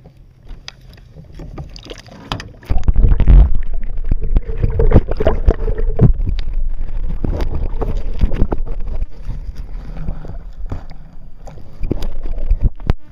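Muffled water sloshing and rumbling, with knocks from handling, as the camera is dipped into the lake. It comes in loud a few seconds in and cuts off suddenly at the end.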